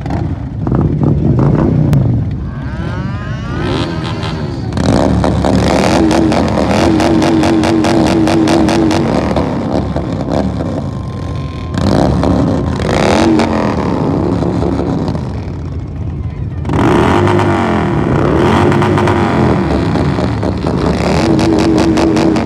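Several motorcycle engines idling at a start line and being revved up in bursts, getting louder and settling back several times.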